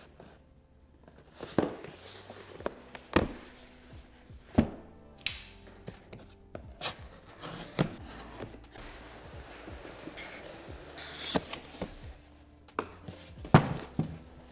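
Cardboard soundbar box being handled and opened: a dozen or so sharp knocks and thuds as it is set down and turned, a knife cutting the seal, and longer scraping hisses as the cardboard slides apart. Quiet background music underneath.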